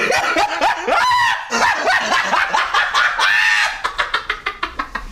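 Excited human screaming and shrieking, the pitch swooping up and down, breaking into quick short yelps near the end.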